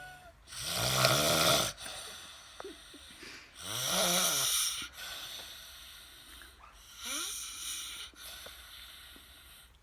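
Snoring: three loud, raspy snores about three seconds apart, each rising and falling in pitch, with a thin whistle on the breath between some of them.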